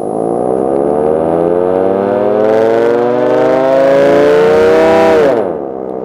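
Dual-tone air raid siren driven by a three-phase motor fed from a single-to-three-phase inverter, winding up into a steadily rising wail for about five seconds. It then drops sharply in pitch and settles to a lower steady tone. It is running at only half power.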